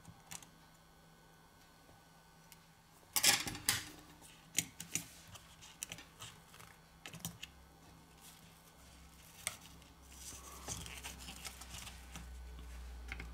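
Small clicks, taps and scrapes of a plastic pry tool and metal tweezers on a phone's motherboard and internal parts as the board is pried loose, with a dense run of clicks about three seconds in.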